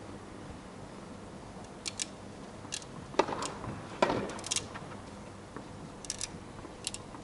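Tennis court between points: scattered light clicks and scuffs from the players moving about and handling racket and ball, with two sharper knocks about three and four seconds in.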